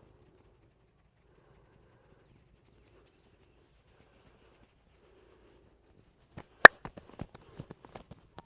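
Hand massage strokes: near quiet with a faint rubbing for about six seconds, then one sharp, loud crack or slap followed by a quick irregular run of lighter slaps and clicks.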